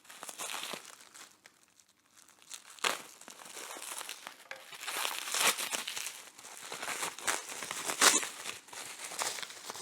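Plastic bubble wrap crinkling and rustling as it is handled and unwrapped, with a few sharper crackles about three, five and eight seconds in.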